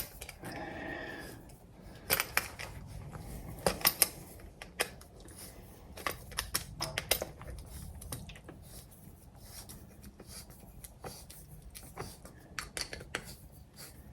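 Thin aluminum drink can being cut into shims: a run of irregular sharp snips and metallic clicks, busiest in the first half.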